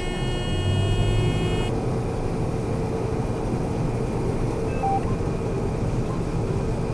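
Combine harvester running in the soybean field, a steady engine and machinery rumble heard from inside the cab. A high whine cuts off about two seconds in.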